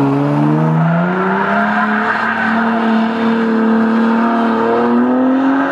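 Dodge Charger engine revving up and held at high, steady revs while the rear tyres spin in a donut.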